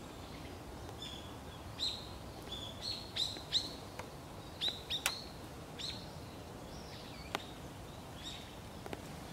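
Small birds chirping: a quick run of short, high calls, thickest in the middle, with a sharp click or two among them.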